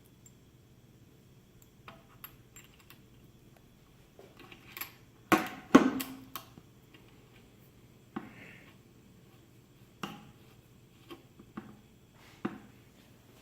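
Scattered metal clinks and knocks of the scale's display mount and its threaded securing knobs being handled and fitted to the lift table's top platform, the loudest cluster a little over five seconds in, then single knocks every second or two, over a faint steady low hum.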